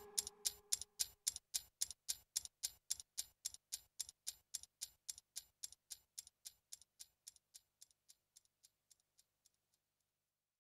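Clock-like ticking, about four sharp ticks a second, at the tail of a music track, fading steadily until it stops near the end.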